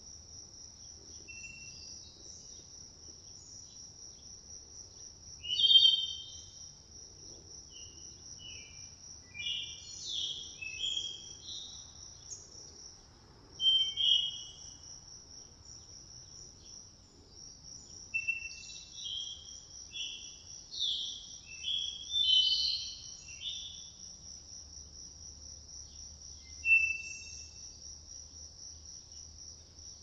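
A steady, high-pitched insect trill, like a cricket or cicada, runs throughout. Short bird chirps and calls come in scattered clusters over it, loudest about 6, 14 and 22 seconds in.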